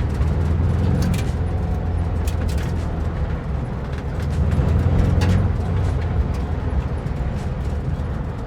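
Vintage VW split-window bus with its air-cooled flat-four engine running as it drives over a rough dirt trail. There is a steady low drone, with scattered sharp knocks and rattles from the bumps, and it grows louder briefly about five seconds in.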